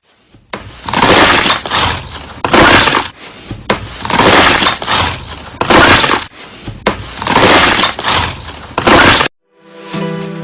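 Slime being squeezed and pressed by hand, giving loud crackling bursts about every second and a half that cut off suddenly near the end. Soft guitar music begins just after.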